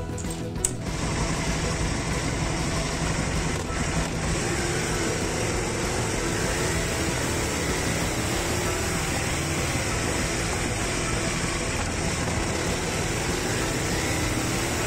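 Aprilia Futura's V-twin engine running as the motorcycle rides along the road, its pitch wavering up and down over a steady rush of road and wind noise.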